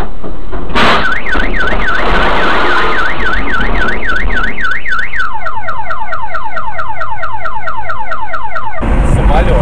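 A short, loud crash as an overturning dump truck's load of branches and scrap comes down against the car, setting off a car alarm. The alarm whoops up and down about twice a second, then switches about halfway to rapid falling chirps. Near the end it cuts off abruptly into steady low road and engine noise.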